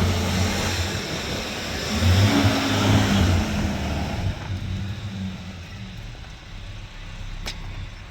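A motor vehicle's engine running, loudest in the first half and then dying away, as if the vehicle moves off. A single sharp click near the end.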